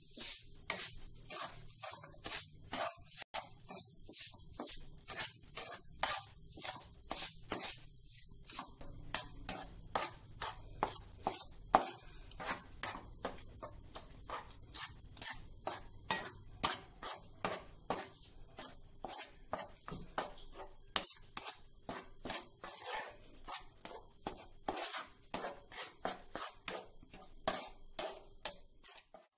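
Spatula stirring and scraping semolina and sugar in a non-stick frying pan: a steady run of short scrapes and taps against the pan, about two to three a second, as the sugar melts into the cooked rava kesari.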